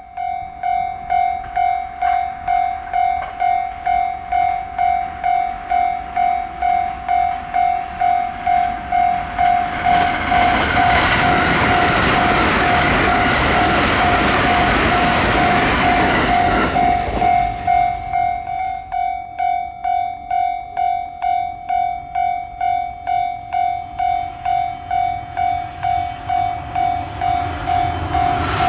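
Japanese level crossing warning bell ringing steadily at about one and a half strikes a second. A train runs through the crossing from about nine seconds in, its rushing wheel and rail noise covering the bell until it passes at around eighteen seconds.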